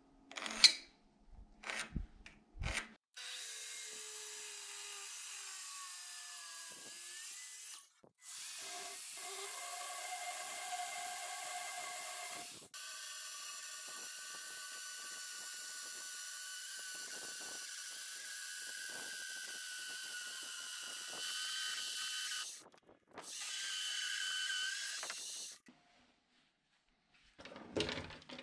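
Festool TS55 plunge saw cutting along a guide rail through an oak beam: a steady whine and rasp of the blade in the wood that breaks off abruptly and starts again several times. A few knocks come at the start and near the end as the rail is handled.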